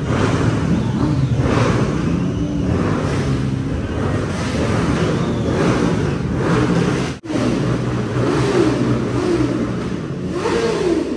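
A performance engine revving hard over and over, its pitch rising and falling with each blip of the throttle. There is a sudden brief dropout about seven seconds in.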